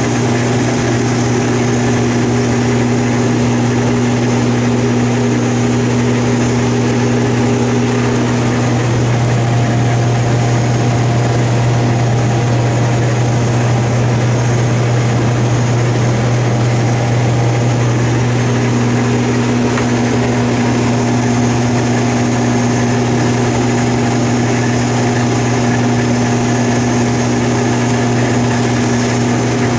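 Combine harvester running steadily: a deep, even engine drone with steady higher tones over it, one of which drops out for about nine seconds partway through while another takes its place.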